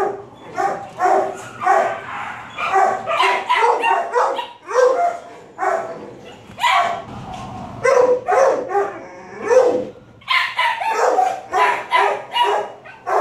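Shelter dogs in kennel runs barking over and over, many short barks at different pitches following each other closely, with a brief lull just before ten seconds in.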